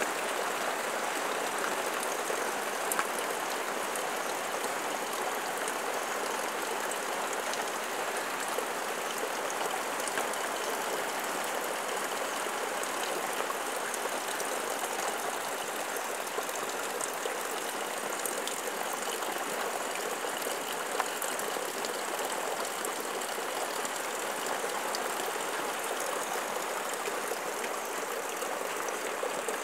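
Steady rush of water splashing and bubbling in a tarpaulin-lined fish pond, with small splashes ticking throughout.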